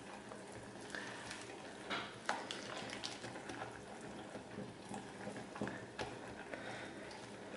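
Wire hand whisk beating an egg into thick melted chocolate and butter in a bowl: faint, wet stirring with light clicks of the wires against the bowl now and then.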